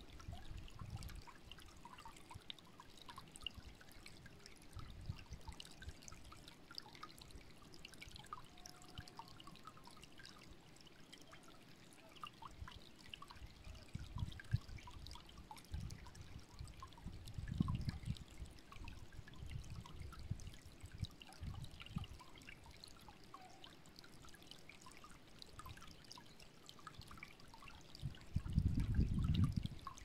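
Shallow stream trickling and babbling steadily over stones. Low rumbles of wind on the microphone come and go, the strongest near the end.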